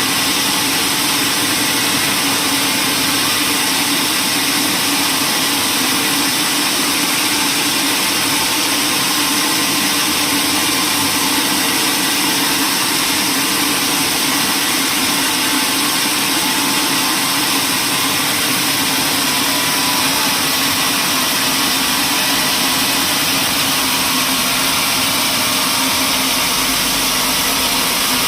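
Woodworking machinery running steadily: a loud, even whir that does not change in pitch.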